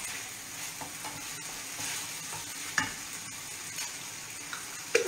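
Broccoli sauce sizzling in a steel frying pan as a wooden spoon stirs it, with a steady hiss. Two sharp knocks stand out, about three seconds in and near the end.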